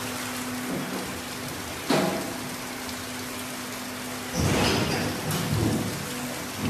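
Slaughterhouse background noise: a steady hiss over a low hum, with a short louder rush about two seconds in and a longer, rougher surge from about four and a half seconds in.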